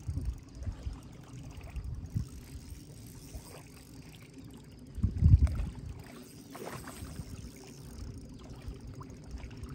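Irregular low rumbling and bumps of wind and water noise on the microphone on open water, with a louder low rumble about five seconds in.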